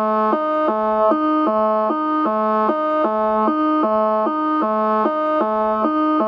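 Electronic alert tone with a keyboard-like sound, alternating evenly and quickly between a low note and a higher note in a steady, repeating pattern.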